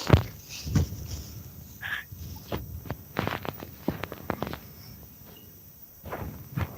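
A sleeping man snoring and breathing noisily, in irregular short snorts mixed with scattered clicks.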